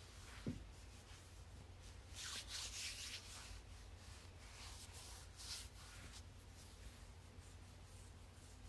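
Faint rubbing and brushing sounds from objects being handled, with a light knock about half a second in.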